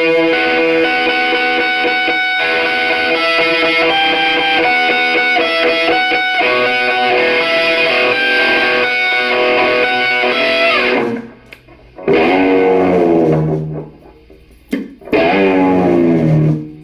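Electric guitar played through an amplifier with effects and some distortion. Held chords and single notes ring on, then stop abruptly. Two later notes each slide down in pitch over a second or two.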